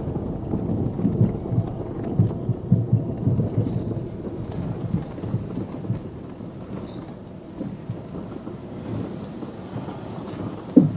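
Car driving slowly over a rough, potholed dirt road: a low rumble with irregular thumps from the tyres and suspension, heavier in the first half. There is one sharp, loud thump near the end.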